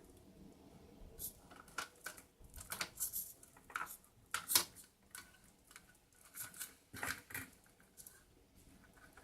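Nylon cable ties being pulled tight around a robot arm's wiring bundle: a string of short, irregular zips and clicks with pauses between them.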